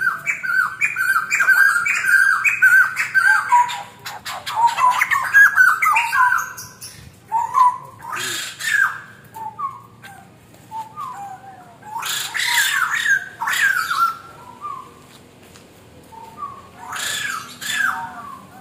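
White-crested laughingthrush calling: a run of quick repeated notes at the start, then phrases that fall in pitch, broken by loud harsh squawking bursts a few seconds apart.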